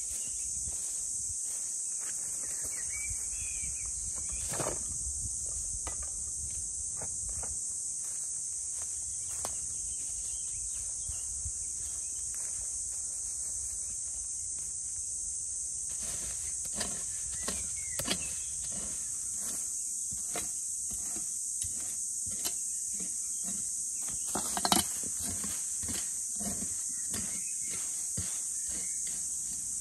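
A steady high-pitched insect buzz. From about sixteen seconds in, a small wooden-handled shovel knocks and scrapes as it digs into soil and leaf litter, with one louder knock near twenty-five seconds.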